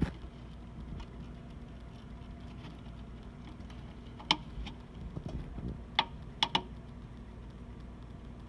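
A few sharp, irregular clicks from hand work at the drain of a Duramax diesel's fuel filter housing as it is drained, over a low steady hum.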